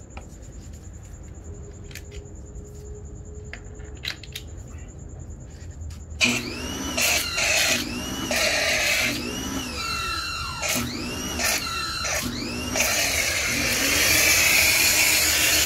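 Pressure washer with a foam cannon spraying soapy water onto an alloy wheel and tyre, starting about six seconds in. The spray comes in short bursts with a whine that rises and falls each time, then runs steady and louder near the end.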